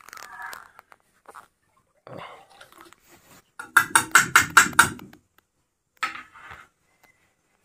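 Steel ladle clinking and scraping against an iron kadai and a steel pot while buttermilk kadhi is stirred, with a quick run of about eight clinks near the middle.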